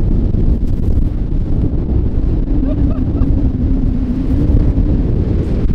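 Strong gusting wind buffeting the microphone, a loud, steady low rumble.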